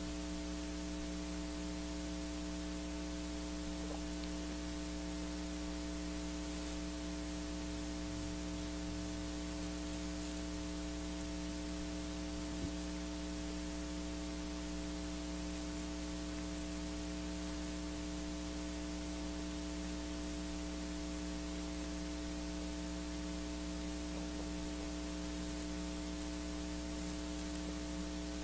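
Steady electrical mains hum, several pitches stacked together, over a constant hiss, the noise floor of the recording setup; a single faint click about twelve seconds in.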